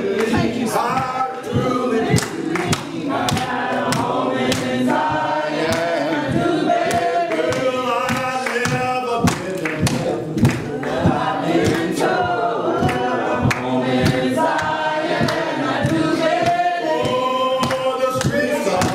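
Gospel singing in a church: a man's lead voice with a group of voices singing along, and regular sharp hits in time with the song.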